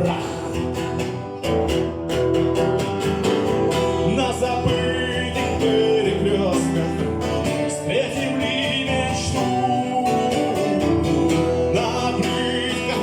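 Music: acoustic guitar playing, with some singing.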